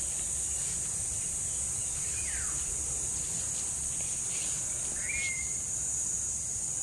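Steady high-pitched insect chorus, with a few short falling bird whistles about two and five seconds in, over a low rumble.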